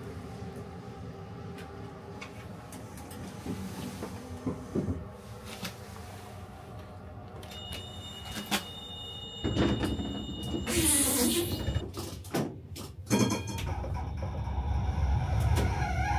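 Vario LF tram's doors working at a stop: a steady high two-note warning tone for about four seconds, a rush and hiss from the door gear, and a few clicks. Near the end a low rumble builds from the tram's running gear.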